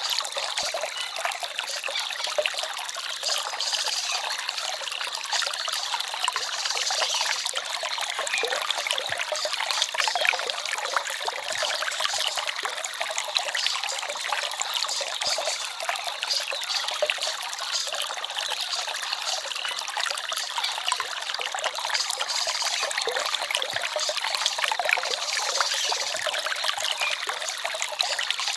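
Forest stream trickling and babbling steadily: a light, even water sound full of small splashes, with no low rumble.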